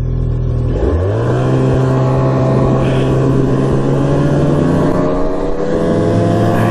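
Snowmobile engine running; its revs rise sharply about a second in, then hold steady and creep slowly higher as the machine is throttled up.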